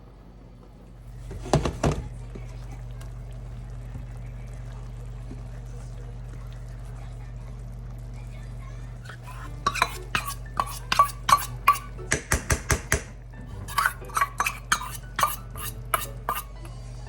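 A utensil clinking rapidly against a dish, about three strikes a second with a ringing tone, starting about ten seconds in, as in stirring. A brief clatter of dishes comes about a second and a half in, over a steady low hum.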